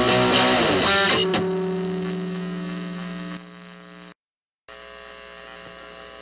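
Final strummed guitar chord of a song ringing out and fading away. After a brief dead silence comes a low, steady electrical hum before the next song begins.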